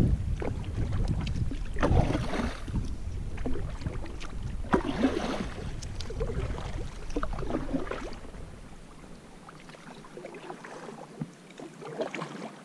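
Kayak paddle strokes splashing in the water, one about every two and a half to three seconds, with wind rumbling on the microphone that falls away about two-thirds of the way through.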